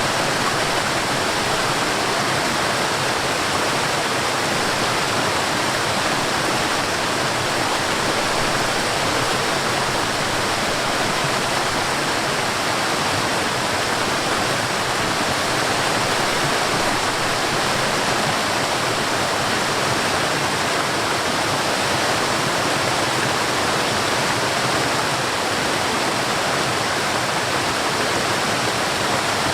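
Forest waterfall, water falling and rushing in a steady, unbroken roar of noise.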